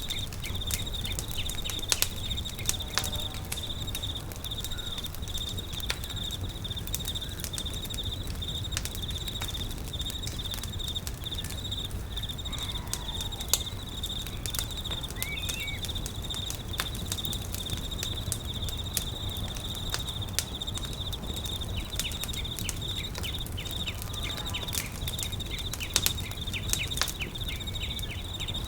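Campfire crackling with sharp pops scattered throughout, over a steady, high-pitched insect trill.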